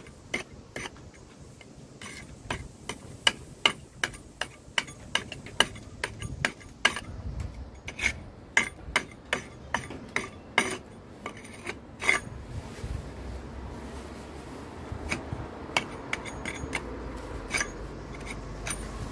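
Hammer and chisel tapping at brick joints, raking out soft, crumbling mortar: a run of sharp taps about two to three a second, a pause of a few seconds past the middle, then a few more taps.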